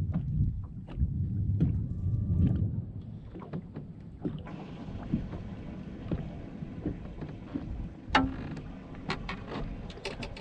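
Low wind rumble on the microphone and water lapping against a boat hull, loudest in the first few seconds. Over it come scattered small clicks and knocks of a fish being handled and moved on the boat deck, with one sharper knock about eight seconds in.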